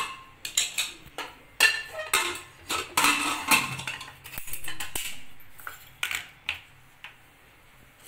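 Aluminium pressure cooker being closed with its lid and set on the gas burner: a run of metal clanks, clinks and a short scrape, stopping about six and a half seconds in.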